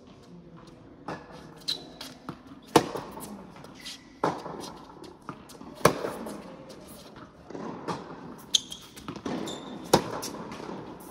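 Indoor tennis rally: three loud racket strikes on the ball about three seconds apart, with fainter bounces and hits from the far end of the court and short shoe squeaks on the hard court. Each strike echoes in the large hall.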